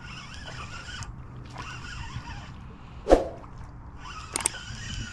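A fishing reel being cranked as a hooked fish is reeled in to the bank, with one sharp thump about three seconds in.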